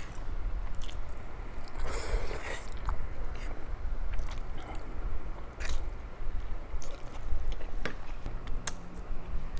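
Close-miked eating: chewing and biting, with a louder crunchy bite about two seconds in and scattered small clicks throughout.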